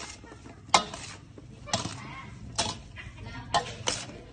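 A metal spoon knocking against the bowl as sliced mango is tossed and mixed: five sharp knocks, about one a second, the last two close together near the end.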